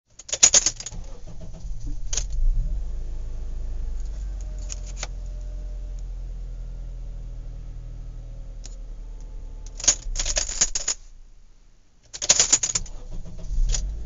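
Horse-farm handling sounds: short bursts of metallic jangling and rattling, about six times, the longest about ten seconds in. Under them runs a steady low rumble that briefly drops out near the end.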